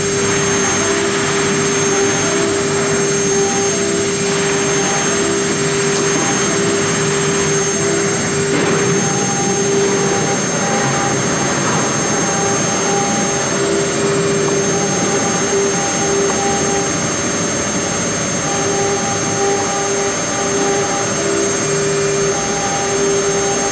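CNC engraving machine's spindle running with a steady high whine while its engraving bit cuts into a two-colour plastic board. A lower hum keeps cutting out and coming back every second or so.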